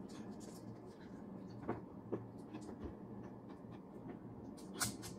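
Faint eating sounds: a few scattered small clicks and crackles from fingers picking at crispy fried pork and from chewing, with a sharper crackle near the end.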